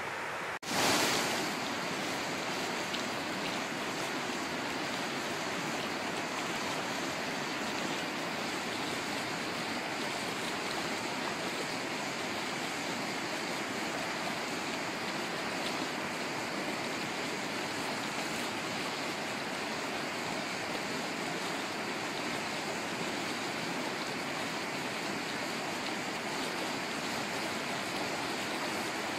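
Steady rush of fast, shallow river current churning below a dam spillway, with water falling down the concrete dam face. A brief break about a second in, then the rush carries on unchanged.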